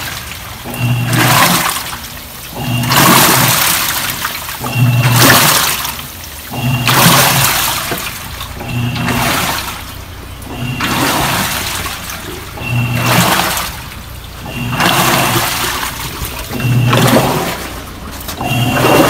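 Top-load washing machine in its wash cycle, the pulsator motor humming in alternating strokes about every two seconds while the water swishes and churns in the tub.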